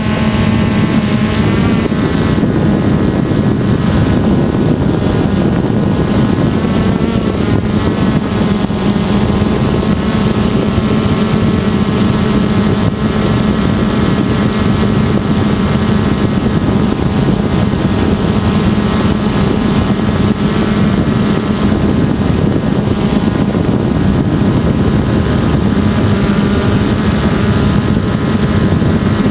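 DJI Phantom quadcopter's four electric motors and propellers droning steadily in flight, heard up close from the GoPro slung beneath it: a strong low hum with higher tones that waver slightly as the motors adjust speed.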